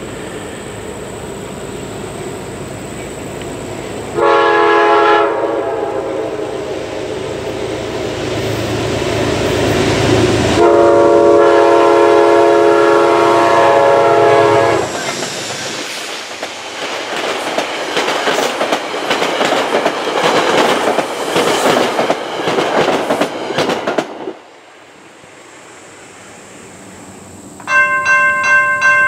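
Horn of a Metro-North P32AC-DM diesel locomotive sounding a short blast and then a long one as its passenger train approaches a grade crossing. The train then passes close by, its wheels clicking rapidly over the rail joints. Near the end, grade-crossing bells start ringing.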